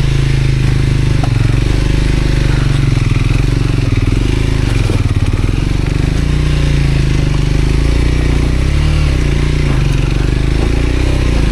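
Motorcycle engine running at low revs as the bike crawls slowly over loose boulders, the pitch wavering a little with the throttle about eight seconds in.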